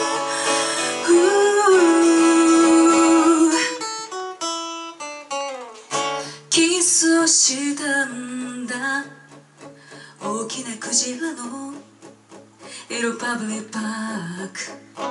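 Live acoustic guitar rock: a singer holds one long note over strummed guitar, then a short run of single picked guitar notes, and singing with guitar resumes about six seconds in.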